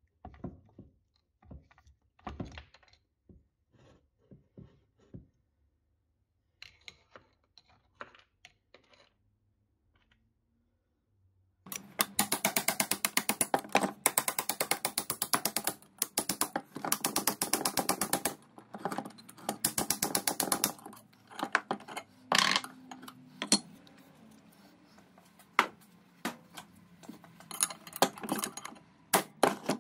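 Cast-iron gear train of an antique beam drill being turned by hand, its bevel gear teeth clattering in fast runs of clicks that last a couple of seconds each, starting about a third of the way in. Before that come sparse light metal taps and clicks as the parts are handled.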